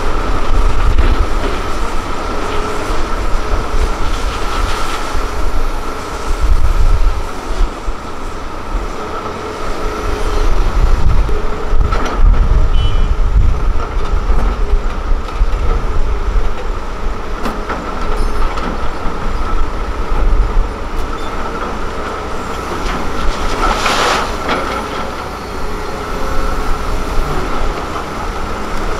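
Hitachi Zaxis 330LC excavator working under load, digging and loading soil into a dump truck: a steady diesel rumble that swells and eases with the work, a steady whine over it, and two sharp knocks, one about twelve seconds in and one about twenty-four seconds in.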